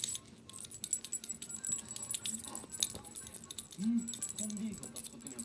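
Quick, light rattling and jangling clicks as a kitten swats at a wand cat toy.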